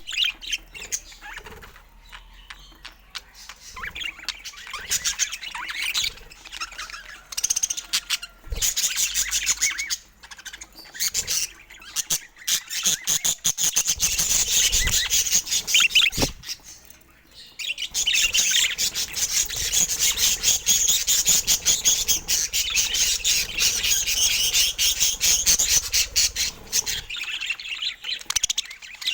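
Budgerigars chattering and chirping in a fast, busy warble with squawks mixed in, easing off briefly twice before picking up again.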